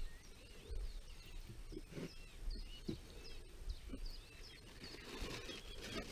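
Birds chirping and singing, with many short high chirps. A few soft knocks sound in between, and a rustling, scraping noise builds near the end.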